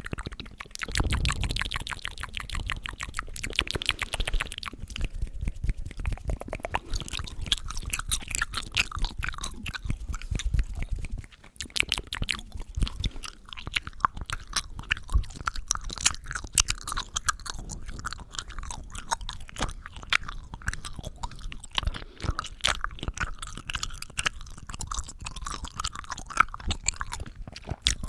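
Close-miked ASMR mouth sounds: dense, rapid clicking from the mouth and tongue, with a brief pause about eleven seconds in.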